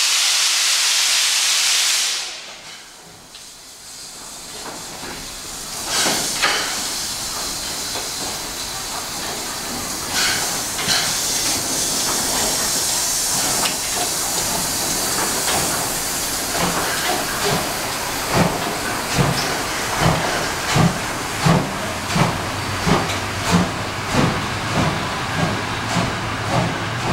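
DR class 03 steam locomotive 03 2155-4 starting away. A loud hiss of steam for the first two seconds cuts off sharply, then steam hisses again from the open drain cocks around the cylinders. In the second half the exhaust chuffs come in a steady beat, about one and a half a second, gradually quickening as the train pulls out.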